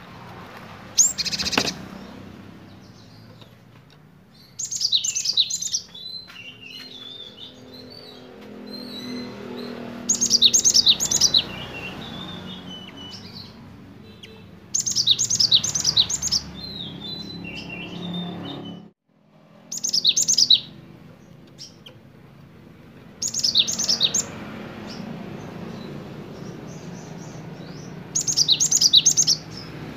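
Cinereous tit (gelatik batu) singing sharp, rapid high-pitched phrases about a second long, seven times, spaced a few seconds apart, with softer chirps between them.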